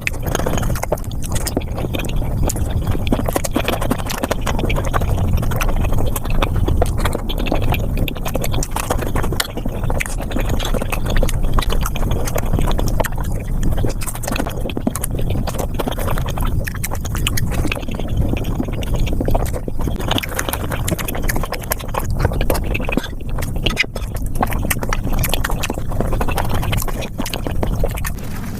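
Close-miked mukbang eating sounds sped up about fivefold: a fast, unbroken patter of chewing and wet mouth clicks.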